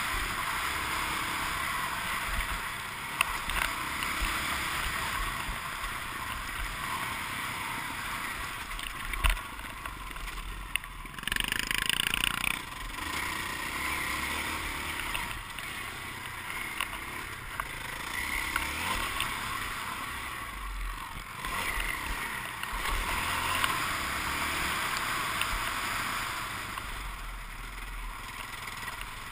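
Motocross bike engine running under hard throttle, heard muffled and hissy from a helmet camera, swelling and easing as the rider rides the track. There are a few sharp knocks, and a louder, brighter burst about eleven seconds in.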